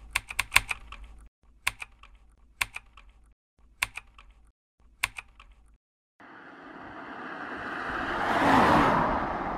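Computer keyboard typing sound effect, in four short bursts of keystrokes. From about six seconds in, a swell of noise rises, peaks and starts to fade near the end.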